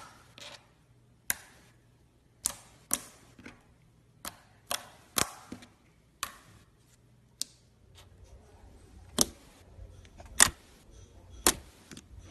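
A series of about a dozen sharp, irregular clicks and taps, each dying away quickly, the loudest in the last few seconds.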